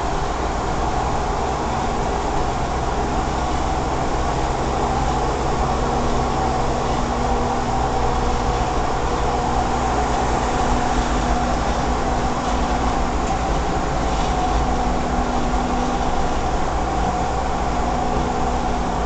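Cabin noise of a 2010 Ford Everest cruising at steady highway speed: even road and tyre noise with a low, steady engine hum.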